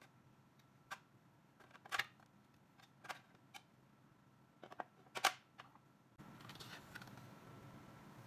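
Light, irregular clicks and taps of cookware and dishes being handled, the loudest pair about five seconds in. A faint steady hiss comes in about six seconds in.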